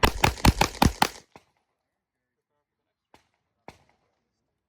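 Rapid string of pistol fire from an Open-class competition pistol, about seven shots in just over a second, each a sharp crack. Two faint single cracks follow a couple of seconds later.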